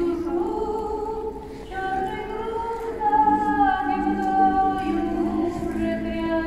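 Choral singing: several voices holding long notes together in harmony, moving slowly from one chord to the next.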